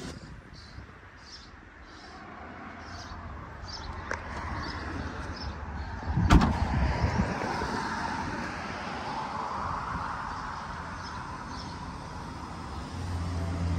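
A single loud slam about six seconds in: the 2016 Honda CR-V's rear liftgate being shut.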